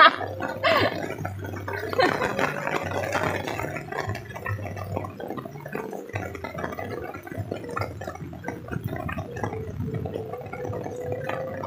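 Heavy rain falling on a cloth umbrella held overhead and on a wet asphalt road, a dense, steady spatter of drops that is loudest in the first few seconds.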